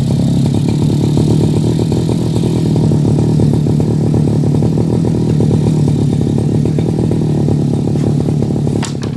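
Brush cutter engine running steadily, the machine's typical sound. Near the end there is a brief click and the engine sound drops slightly.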